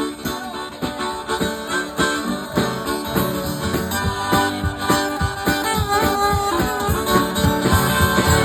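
Instrumental break of a country-blues song: strummed and plucked guitar with a harmonica playing over it.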